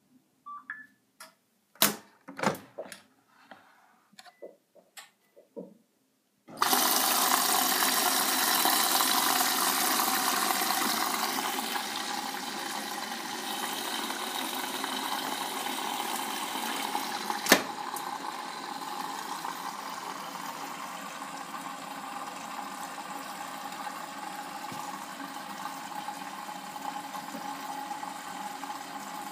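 A few clicks and knocks at the Bosch Home Professional WAY32742 washing machine, then about six seconds in water suddenly rushes in through the inlet as the machine starts filling for its Easy-care cycle, a steady hiss that eases a little as it goes on. There is a single sharp click partway through the fill.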